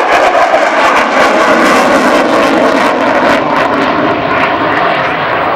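Loud, steady jet noise of an F-16 fighter in flight during an aerobatic display, easing slightly near the end.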